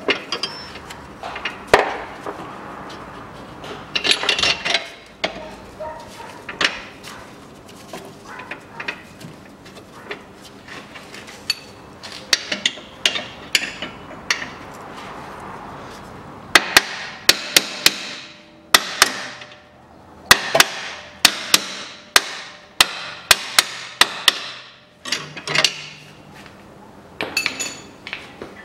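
Sharp metallic clicks and knocks of hand tools on steel bolts as the bolts of a new rear lower engine mount are fitted and tightened. The clicks come in quick runs, most densely in the second half.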